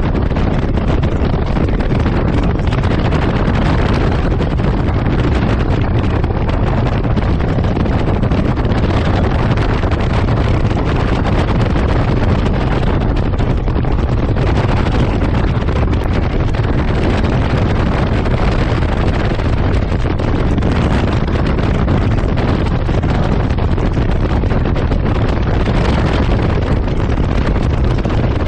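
Steady wind noise over the microphone of a bass boat running at top speed, about 75 mph, with its Mercury Pro XS outboard held near 5,750 rpm underneath.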